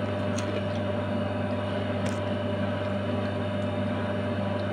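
Steady hum of a running household appliance, a low drone with a higher steady tone over it, with a couple of faint ticks.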